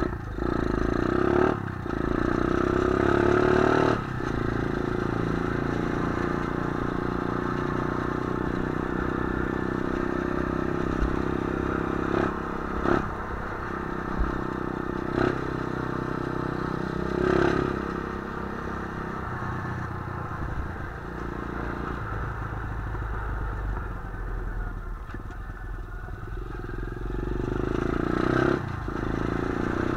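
125 cc pit bike's single-cylinder engine running while riding, revving up about two seconds in and again near the end. A few sharp knocks come in the middle.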